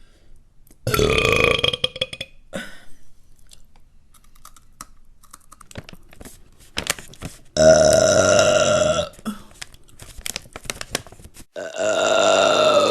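A person burping three times, each a long, drawn-out belch lasting more than a second, the last one still going at the end. Faint small clicks between the burps.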